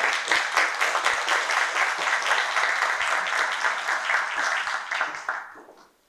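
A small audience applauding, dying away about five and a half seconds in.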